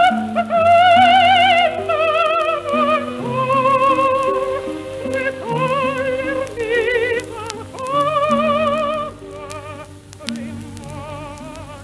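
An operatic soprano singing with a wide vibrato over sustained accompaniment, heard from an old acetate disc recording. The voice drops away about nine seconds in, leaving quieter music.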